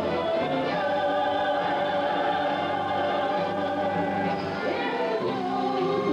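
Choir singing long held chords, moving to new notes about four and a half seconds in.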